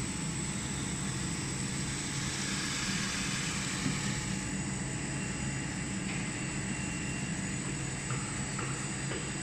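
Wood brush sanding machine running steadily, its rotating brush rollers and motors giving a continuous hum and hiss.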